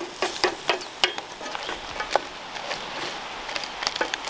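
Wooden spoon stirring crawfish and vegetables frying in coconut oil in a metal pot: a steady sizzle with irregular knocks and scrapes of the spoon against the pot.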